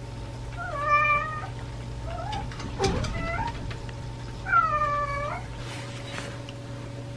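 Kitten meowing four times: two long, high mews with two short ones between them. There is a brief knock about three seconds in, over a steady low hum.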